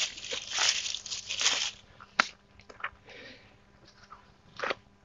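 A plastic bag crinkling loudly as it is crumpled and pushed down into a cardboard box for about the first two seconds, followed by a few light clicks and a short knock.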